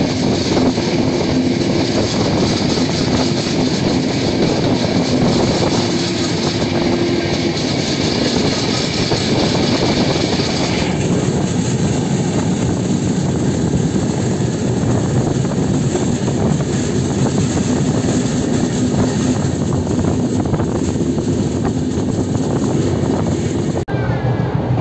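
Passenger train in motion: a steady, loud running noise of wheels and coach with a low hum underneath. The sound changes abruptly shortly before the end.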